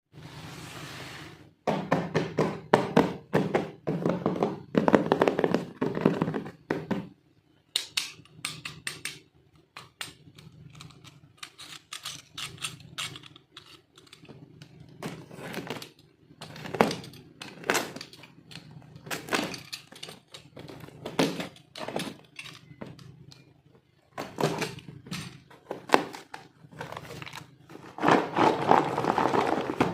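Plastic toy pieces and their packaging being handled during an unboxing: irregular clicks, taps and knocks with rustling, busiest in the first few seconds and again near the end.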